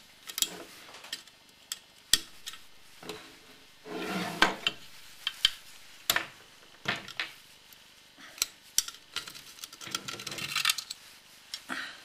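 A small screwdriver clicking and scraping against the metal outlet of a Saxonette auxiliary-motor exhaust, picking out the broken remains of its old, crushed sealing ring. The clicks are irregular, with longer scrapes about four seconds in and again around ten seconds.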